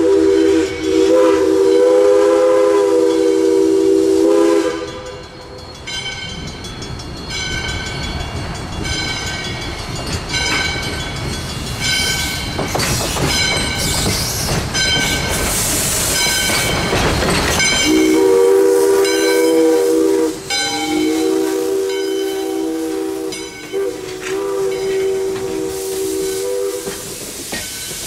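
Steam whistle of a 1920 ALCO steam locomotive sounding a chord: one blast for the first few seconds, then two more near the end, the second long. Between them the locomotive's bell rings steadily about once a second over the hiss of escaping steam.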